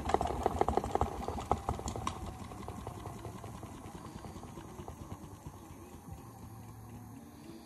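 Modified toy Miele W1 washing machine in an unbalanced spin: the drum knocks and rattles rapidly on its suspension. The knocking is loud at first, then thins out and dies away as the spin winds down.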